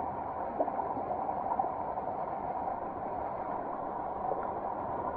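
Mountain stream running over rocks and a small cascade: a steady rush of water, with two brief ticks in the first two seconds.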